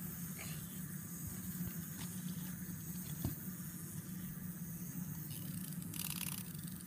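Clockwork wind-up toy running on a surface, its spring motor and gears whirring steadily. There is a single tap about three seconds in and a brief burst of rapid clicking near the end.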